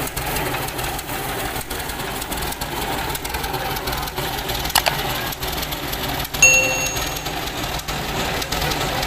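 Turbocharged Mitsubishi Fuso 6D22 straight-six diesel running steadily on a test stand after repair. A sharp click comes just before halfway, and a single metallic ding rings out about two-thirds of the way through.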